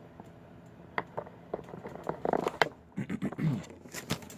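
Irregular small clicks and knocks of battery clamps and tools being handled, with a brief murmur of voice partway through.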